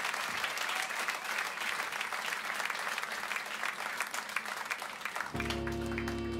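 Audience applauding and clapping. About five seconds in, a steady sustained chord on electric guitar comes in over it and holds.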